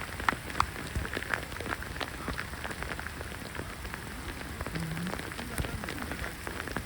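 Heavy rain pouring down, an even hiss with frequent irregular sharp taps of individual drops.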